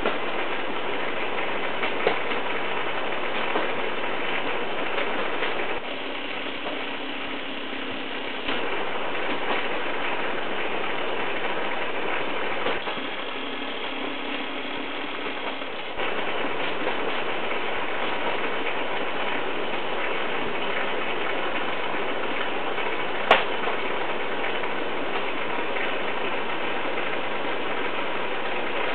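Steady rattling, bubbling noise of a running aquarium's aeration and filtration. It drops a little twice for a few seconds, and there is one sharp click about two-thirds of the way through.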